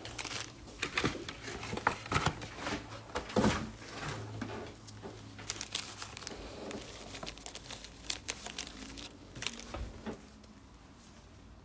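Foil trading-card pack wrappers crinkling and tearing as packs are opened and the cards are handled, in quick irregular crackles that thin out near the end.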